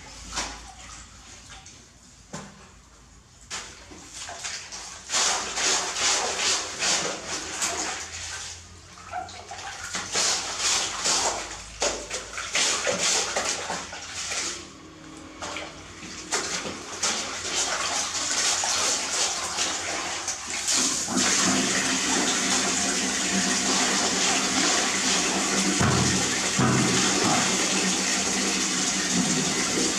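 Water splashing and sloshing in irregular bursts, then, about two-thirds of the way in, a wall tap starts running steadily into a plastic bucket.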